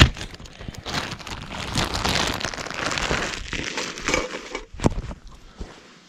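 Irregular crinkling, crackling rustle with many small clicks, easing off after about four seconds, with one sharper click near the end.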